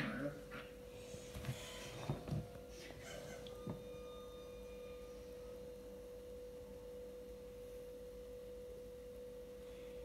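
A faint, steady, single-pitched hum a little under 500 Hz that holds unchanged throughout, with a few soft knocks and scuffs in the first four seconds.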